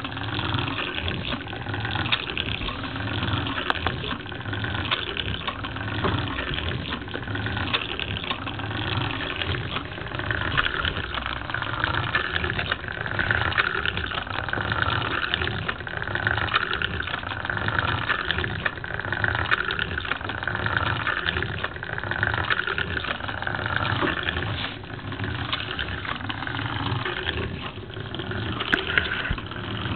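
Lego pneumatic walking beam engine running on compressed air, its valve and cylinder letting out air in a steady, rhythmic hiss.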